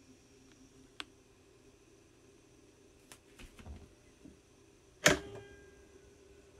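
Controls of a HARA Disc Recorder RM-805VA record-cutting lathe being worked by hand: a small click about a second in, soft handling knocks around three to four seconds, then one loud, sharp clack with a short metallic ring about five seconds in as the lever on the front of the machine is thrown.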